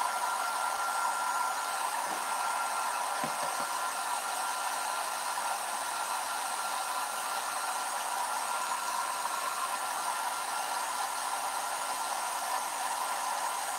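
A small electric blower running steadily, giving an even rush of air, with a faint steady whine in the first half.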